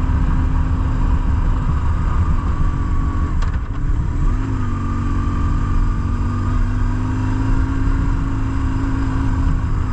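BMW R1150GS Adventure's boxer-twin engine running steadily, its note dipping briefly about three and a half seconds in, with wind rumble on the microphone.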